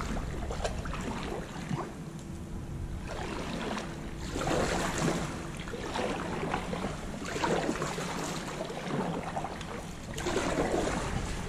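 Kayak paddle strokes dipping and splashing in shallow seawater, a swell of water noise every two to three seconds.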